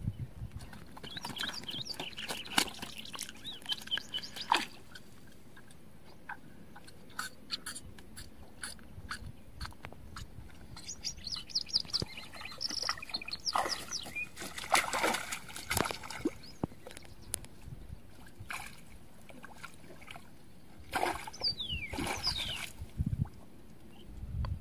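A freshly caught rohu flapping and splashing in the shallow pond water as it is handled and put into a mesh keep net, with irregular splashes, drips and knocks. Scattered bird chirps are heard.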